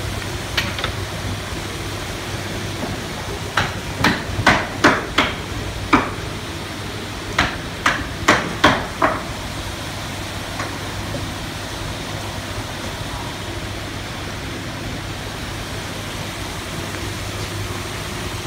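Two runs of sharp knocks, about two to three a second, each run lasting two seconds or so. Under them is a steady hum with water noise from the aerated live-seafood tanks.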